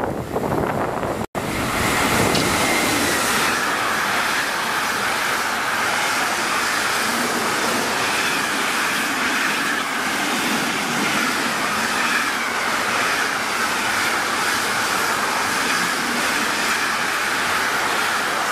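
Container freight train hauled by an SBB Cargo E484 electric locomotive passing at speed: a steady, loud rush of wheels on rails and displaced air. The sound cuts out for an instant just over a second in.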